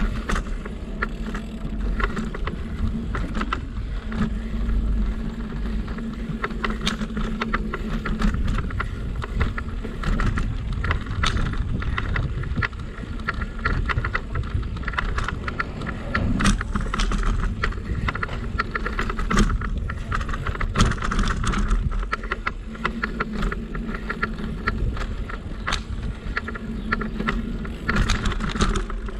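A bicycle being ridden, heard from the bike: a steady rumble of tyres and wind on the microphone, with frequent small rattles and clicks from the frame and fittings.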